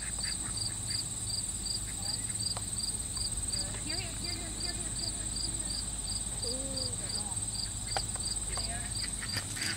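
Crickets chirping steadily, a continuous high trill with a regular pulsed chirp about three times a second, over a low rumble. A few faint short calls sound in the middle.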